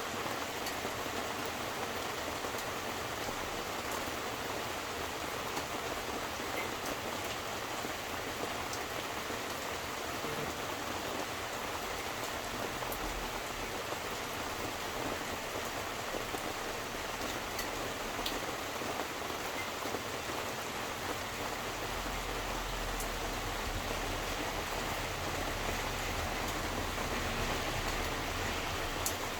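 Steady rain falling, with scattered sharp drips landing close by. A low rumble comes in about two-thirds of the way through.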